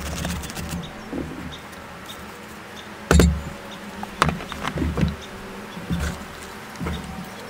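Red onion being sliced and handled on a plastic mandoline over a cutting board: a brief crisp scraping at the start, a sharp knock about three seconds in, then several lighter knocks and rustles as the sliced onion is gathered by hand into a bowl. A steady low buzz runs underneath throughout.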